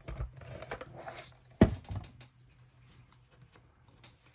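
Paper and card stock being handled and slid across a tabletop, rustling, with one sharp tap about a second and a half in, then only a few faint clicks.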